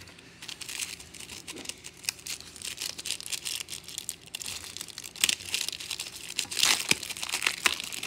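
Plastic wrapper of a trading-card pack crinkling and tearing as it is pulled open by hand, with louder sharp crackles in the second half.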